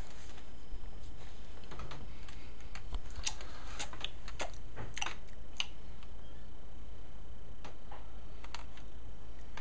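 A toddler chewing a solid chocolate bunny: a run of small wet clicks and smacks from the mouth, busiest a few seconds in and again near the end, over a low steady hum.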